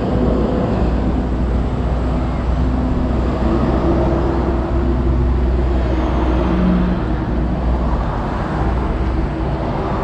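Steady rumble of road traffic going by, with a vehicle engine drone held for a few seconds in the middle.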